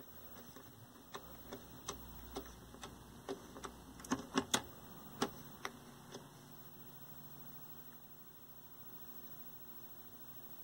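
Tuner knob of a 1973 Toshiba C321 hybrid tube/transistor colour TV being turned by hand: a run of sharp clicks, about two a second, with three louder clicks close together about four seconds in, stopping about six seconds in.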